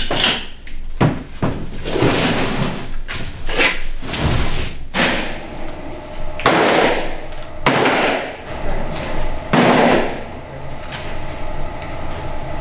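Repeated knocks, thuds and scrapes of cast cultured-marble vanity tops and their molds being lifted and set down on metal racks, about eight in twelve seconds, each with a short ringing tail. A faint steady hum sits underneath from about five seconds in.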